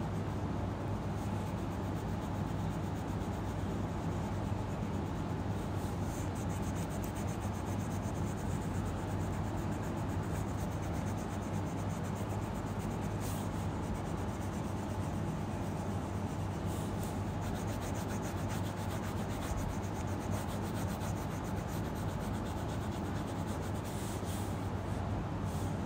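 Colouring pencil rubbing back and forth on paper as a picture is shaded in, over a steady low hum.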